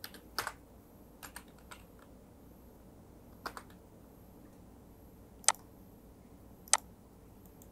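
Scattered clicks of a computer keyboard and mouse, about nine in all, some in quick pairs, with longer gaps in the second half.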